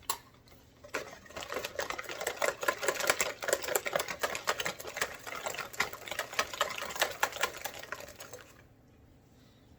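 Eggs and sugar being whisked by hand in a bowl, the whisk clicking and scraping against the bowl in a fast, uneven rattle. It starts about a second in and stops near the end.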